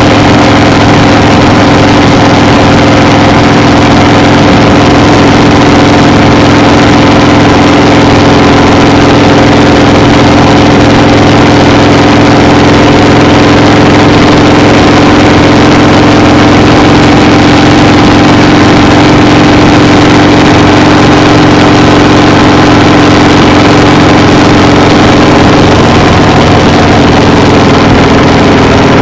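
Loud, steady engine drone with a constant hum that holds one pitch throughout.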